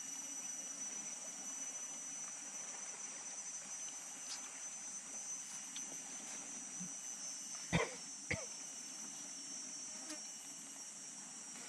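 Steady high-pitched chorus of insects. Two short, sharp sounds stand out about three-quarters of the way through.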